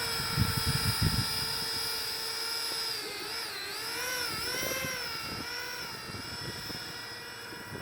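Electric ducted fans of an RC Airbus A330 airliner model running at low taxi power, a steady high whine that dips and comes back up in pitch about midway as the throttle is eased and reopened. Low buffets of wind on the microphone in the first second or so.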